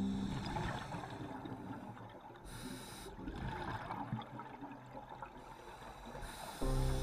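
A scuba diver breathing through a regulator, heard underwater: bubbling exhalations, with a short breath hiss about two and a half seconds in and again just before the end. Background music comes back in near the end.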